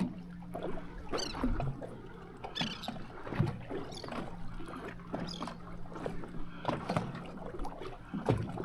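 Scattered light knocks and clicks on a small fishing boat over a faint steady hum.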